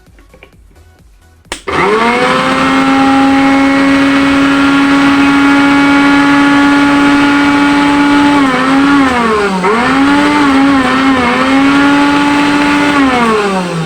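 Mixer grinder's universal motor switched on with a click about a second and a half in, spinning up at once to a loud, steady high whine. The pitch dips and wavers a few times in the middle, then falls as the motor is switched off and winds down near the end. The motor itself runs normally; the fault is a live, shocking body from damp and dust.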